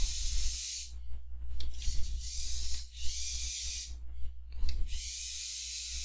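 Steady high hiss over a low hum, the hiss dropping out briefly about a second in and again near the end, with a few faint clicks.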